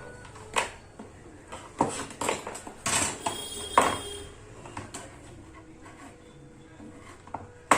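Sharp knocks and clattering of hard objects being handled. There is a knock about half a second in, a cluster of clatters from about two to four seconds, and one sharp click near the end.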